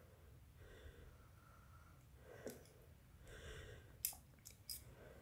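Mostly quiet room tone with soft breathing. About four seconds in comes one sharp click, then two lighter ones, as small plastic model-kit parts are set down on a hard surface.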